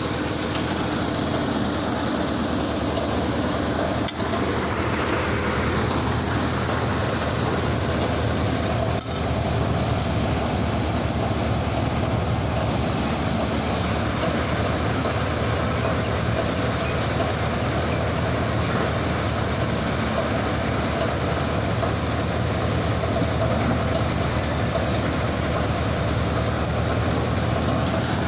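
Tractor-powered paddy thresher running steadily while rice is fed through it: the tractor engine drives the threshing drum with a continuous mechanical din.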